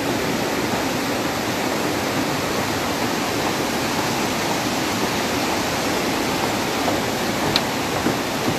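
Steady rush of falling water from a waterfall fed by water from the Düden waterfall, an even roar with no change in level. A single light click near the end.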